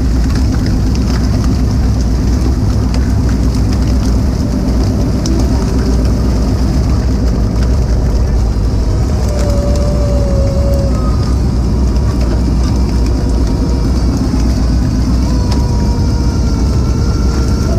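Fishing boat's engine running steadily, a loud low drone.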